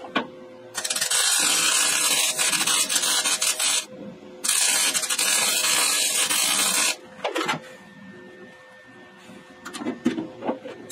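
MIG welder laying two crackling beads on the steel body sheet metal of a 1968 Camaro, each about three seconds long with a short pause between them, followed by a few light clicks.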